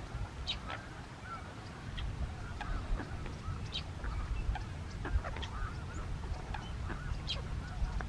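A distant flock of waterfowl honking, many short arched calls overlapping, with sharp high bird calls scattered through, over a low rumble.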